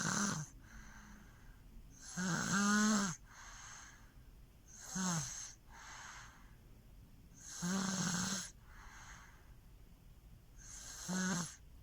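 A baby snoring loudly in her sleep, with a rasping, buzzing snore about every three seconds and a softer breath between each.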